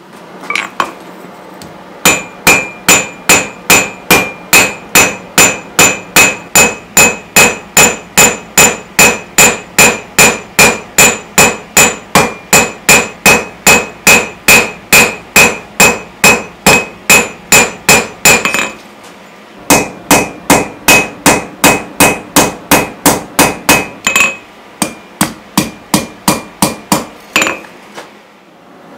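Cross pein hammer striking a hot steel leaf on an anvil, texturing its veins: a long run of quick, even blows, about three a second, each with a bright metallic ring. The hammering pauses for about a second twice and stops shortly before the end.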